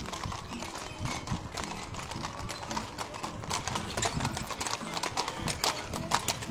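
Hooves of a pair of carriage horses clip-clopping on an asphalt road as they pull a carriage past, the hoofbeats loudest near the end as the horses come close.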